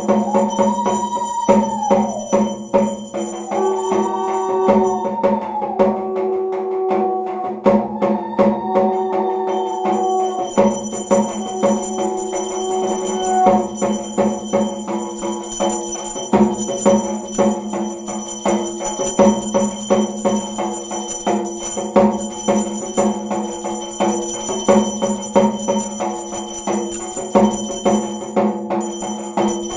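Aarti accompaniment: fast, steady percussion beats with bells ringing throughout. In the first half a held tone swells and falls away several times over the beat.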